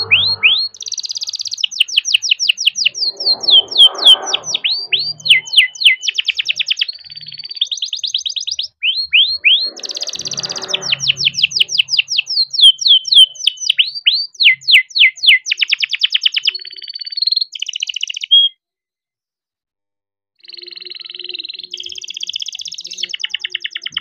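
Young canary singing its rolling song: long runs of fast repeated notes and trills, one phrase running straight into the next. The song cuts off for about two seconds past the middle, then resumes.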